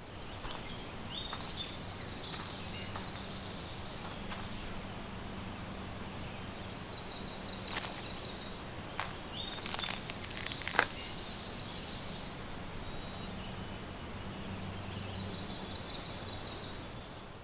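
Quiet woodland ambience: small birds give short, rapid trills several times over a faint low hum, with scattered soft clicks and rustles like steps in grass. A single sharp snap comes a little past the middle.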